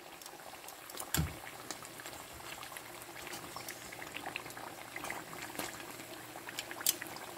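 Banana turon (plantain spring rolls) frying in hot oil in a pan: steady sizzling with scattered crackles and pops, and a single knock about a second in.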